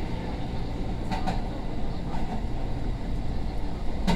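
Running sound of a 205-series 3100 electric commuter train heard from inside the car: a steady low rumble of wheels on rail, with two short sharp knocks, about a second in and again at the end.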